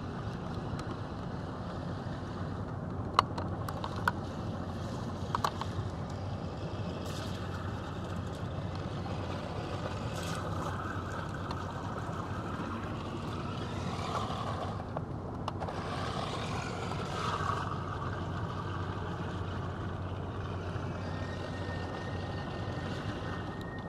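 Steady low rumble and hiss heard from inside a vehicle's cabin, with a few sharp ticks in the first several seconds. From about ten seconds in, a faint whirring swells and fades for several seconds: the motor of an amphibious radio-controlled car running through a puddle.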